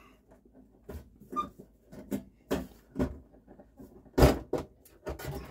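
Top cover of a Yamaha CDC-625 CD changer being worked loose by hand on its chassis: a series of separate knocks and clunks, the loudest about four seconds in.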